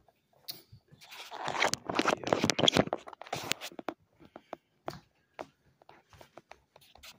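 Rubbing and rustling of hands on a phone's microphone as the phone is taken off its mount and carried, loudest for a couple of seconds, then scattered light clicks and taps.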